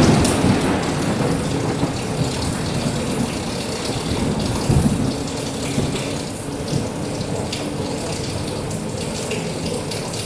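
Steady heavy rain with thunder: a sharp clap just as it begins, then low rumbling that swells again about five seconds in and dies away, leaving the rain.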